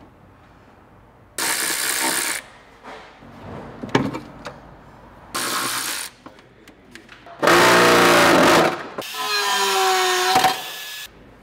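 Cordless ratchet spinning nuts down onto shock absorber top mounts in four short runs of about a second each, the third the loudest with a whine, the last with a pitch that falls as the nut tightens against its rubber bush.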